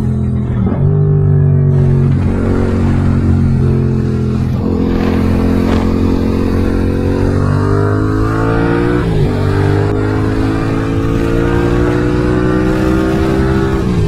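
Yamaha MT-07's 689 cc parallel-twin engine through a full Mivv exhaust system with headers, pulling through the gears under way: its note climbs steadily in each gear and drops back at each upshift, several times. Wind rushes over the helmet microphone.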